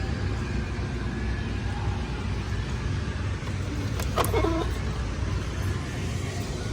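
Steady low road rumble inside a moving car, with a brief voice-like sound about four seconds in.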